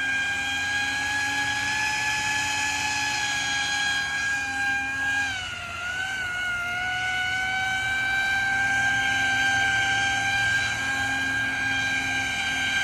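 Pro Boat AeroTrooper 25-inch RC airboat's electric motor and air propeller running at high throttle: a loud, steady high whine that dips briefly in pitch about five or six seconds in, then comes back up and holds.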